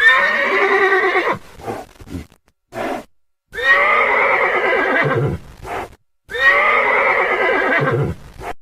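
A horse whinnying three times. Each call lasts about a second and a half with a wavering pitch and is followed by a shorter, fainter sound.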